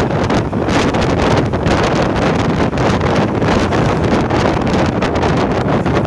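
Wind buffeting the microphone of a phone in a moving vehicle: a loud, steady rush with rapid fluttering, over the noise of the vehicle travelling along the road.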